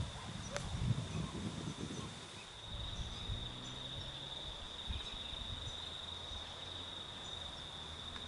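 Steady, high-pitched insect chorus trilling without a break. Footsteps on the path sound through the first couple of seconds.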